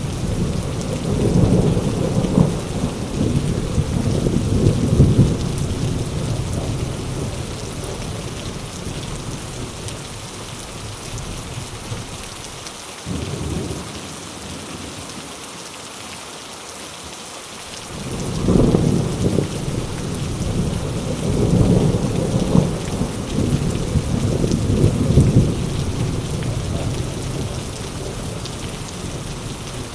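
Heavy rain falling steadily, with rolling thunder: a long low rumble fading over the first several seconds, then a second long rumble starting a little past halfway.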